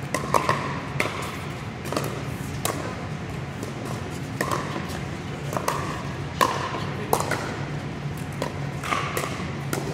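Pickleball rally: sharp pops of paddles striking the plastic ball, about a dozen at uneven intervals of roughly half a second to two seconds, echoing in a large hall.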